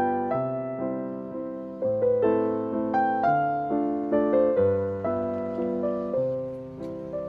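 Background piano music: slow, gentle notes, each struck and left to fade.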